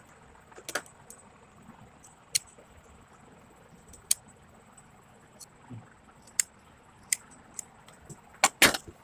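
Scissors snipping through fabric: short sharp snips every second or two, with a couple of louder ones close together near the end.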